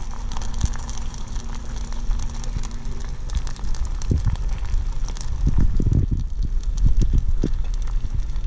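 Sticks of chewing gum sizzling and crackling with many small pops as they melt and bubble in a saucepan with a little hot water. A faint steady hum runs under it for the first few seconds.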